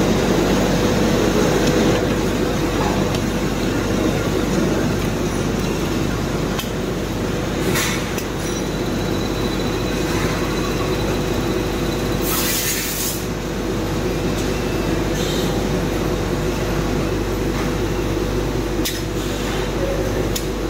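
Automatic armature testing machine running: a steady hum with a held tone, a few brief clicks, and a hiss of about a second from its pneumatic cylinders roughly twelve seconds in.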